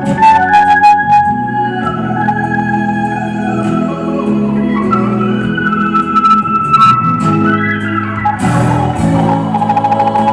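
Live band playing a slow instrumental passage with long held chords, led by an organ-like keyboard. There is no singing.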